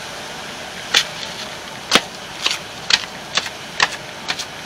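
Steady rush of water churning below a concrete spillway. From about a second in, a series of sharp clicks or taps comes roughly twice a second.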